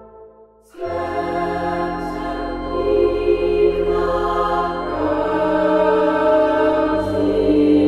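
Background music with slow, sustained chords in a new-age, chant-like style. It drops out just before one second in, and a new passage begins straight after.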